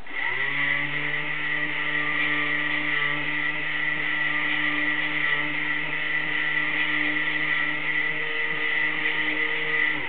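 Electric drive motor of a motorized, DCC-controlled Peco NB 55 model railway turntable spinning up quickly and running with a steady whine as the deck rotates, then stopping abruptly near the end.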